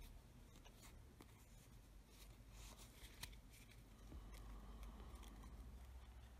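Faint rustling and light clicks of paper playing cards being handled as a fanned-out Tally-Ho deck is closed and squared up, with one sharper click about three seconds in.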